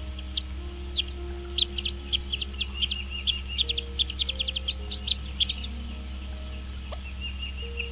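A bird gives a rapid series of short, high chirping calls that crowd together in the middle and stop about five and a half seconds in, over soft sustained background music.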